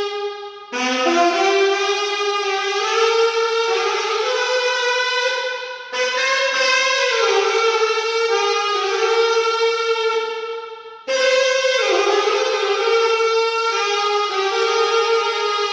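Alto saxophone playing slow, held notes in three phrases, each starting afresh about every five seconds.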